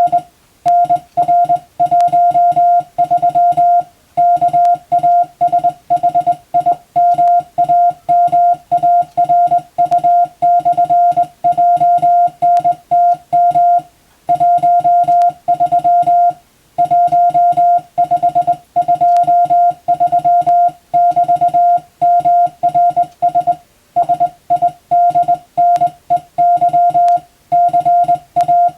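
Morse code (CW) tone keyed on and off in quick dots and dashes at one steady pitch, sending practice telegram text, with a few longer pauses between groups.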